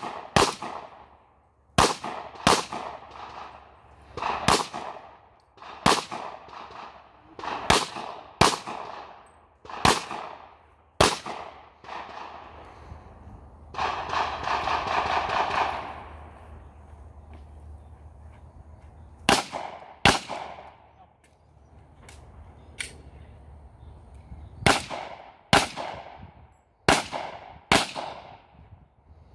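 Glock 22 pistol in .40 S&W firing a USPSA stage string: sharp single shots, many in quick pairs about three-quarters of a second apart, each followed by a short echoing tail. There are pauses of a few seconds between groups of shots as the shooter moves between targets.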